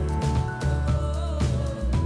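Background music with a steady beat, bass and a sustained melody.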